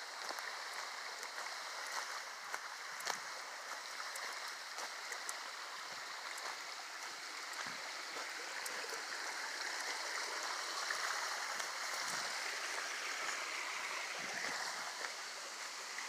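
Running water rushing steadily, a little louder in the second half, with scattered footsteps on a dirt and leaf-litter trail.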